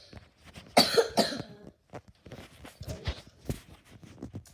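A cat's hacking cough: one loud burst about a second in, then a run of shorter, quieter hacks.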